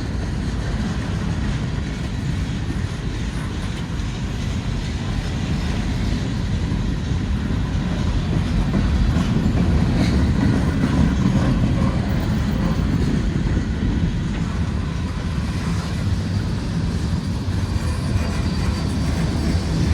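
Cars of CSX freight train M427 rolling past: a steady noise of steel wheels on rail that swells slightly midway through.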